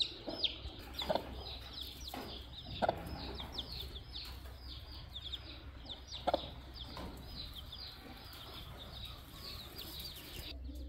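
Young chicks peeping steadily, many high downward-sliding peeps a second, with a few short clucks from the broody hens about one, three and six seconds in.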